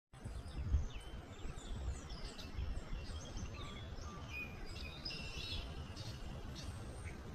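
Several birds chirping and calling in short, overlapping notes over a steady low rumble.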